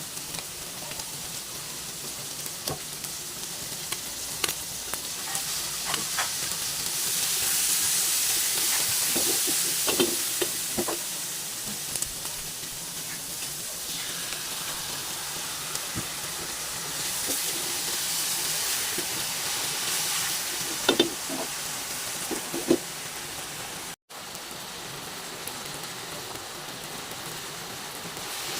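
Food sizzling in a hot pan as it is stir-fried, with scattered clicks of a utensil against the pan. The sizzle swells louder twice, and the sound cuts out for a moment about three-quarters of the way through.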